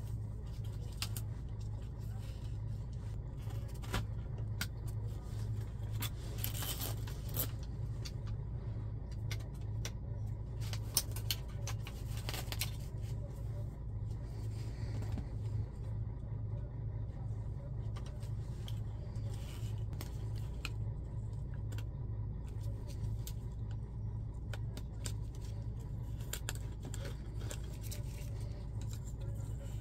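Plastic clicks, scrapes and light knocks from a DAF truck instrument cluster being taken apart by hand, as the plastic LCD frame comes off and the LCD's ribbon connector is handled, over a steady low hum.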